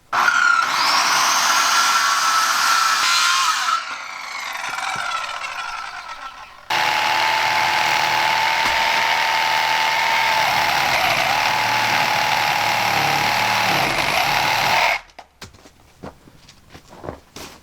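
Electric power saw whining up to speed and running for about four seconds, then winding down. It starts again and runs steadily at a lower pitch for about eight seconds while cutting a board to length, then cuts off, followed by a few knocks.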